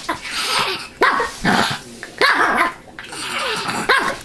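A dog barks several times and growls in play, snapping up at a toy.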